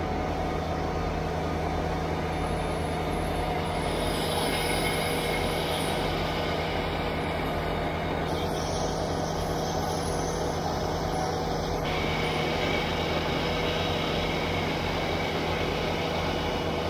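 Kubota BX23S tractor's three-cylinder diesel running steadily at working speed, driving its front-mounted snowblower as it chews through snow and throws it out of the chute.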